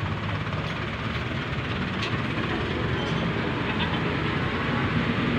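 Steady rumble of nearby vehicle traffic, with a few faint clicks of small metal parts being handled.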